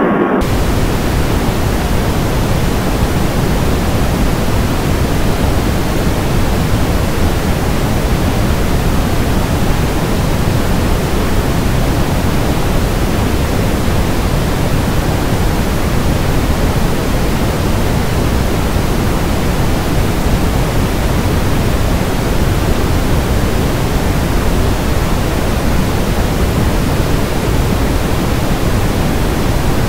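Loud, steady hiss-like noise, even across all pitches and unchanging, with no clicks, rail beats or tones in it. It sets in abruptly about half a second in, replacing a tonal running sound.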